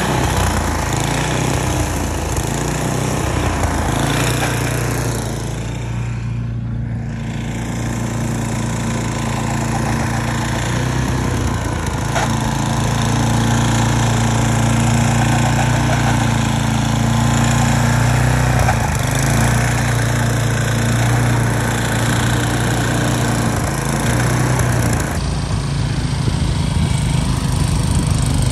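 Gas-powered two-stage snow blower engine running steadily under load while its auger churns through deep snow.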